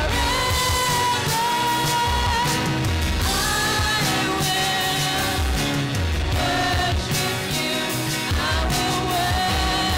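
A live praise and worship band: several singers hold long sung notes in unison over keyboards, keytar and a steady drum beat.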